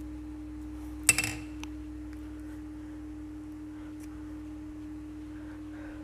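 A single sharp metallic clink about a second in, with a few faint ticks later, as metal parts are handled and fitted on a motorcycle engine's balancer shaft, over a steady low hum.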